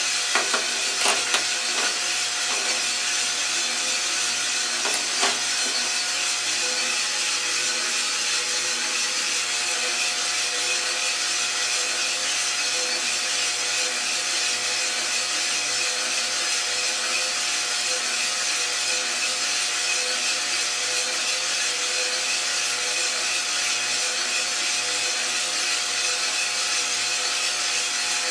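IRoaster 600 coffee roaster running mid-roast: a steady whirring hum of its fan and rotating drum with beans tumbling inside. A few sharp clicks come in the first two seconds and one more about five seconds in.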